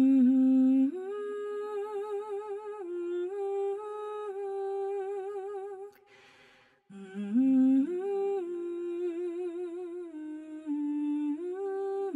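A voice humming a slow, wordless melody of held notes with a wavering vibrato. It stops briefly about six seconds in and then picks up again.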